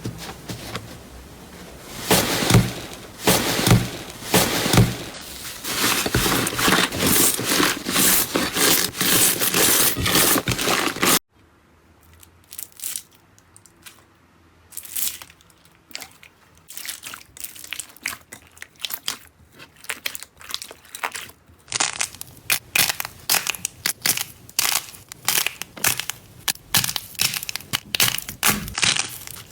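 Slime being squeezed and pressed, giving dense crackling and crunching. It cuts off abruptly about 11 seconds in and gives way to quieter, sparser crackles that grow denser again from about 22 seconds.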